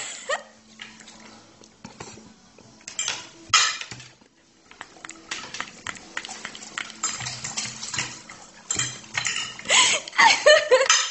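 Fork and knife clinking and scraping on a ceramic dinner plate in scattered, irregular strikes, with a person's voice rising over them near the end.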